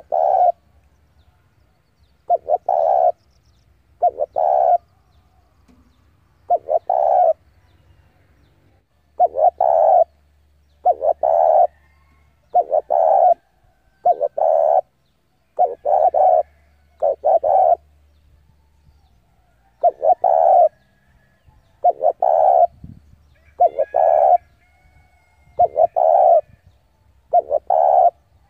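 Spotted dove (Vietnamese cu gáy) cooing over and over as a decoy bird, its lure call to draw wild doves in. Each phrase is two or three low coos, repeated roughly every one to two and a half seconds.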